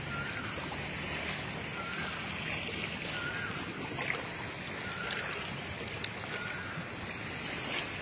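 Steady wash of shallow sea water and wind on the microphone, with a few faint short high peeps now and then.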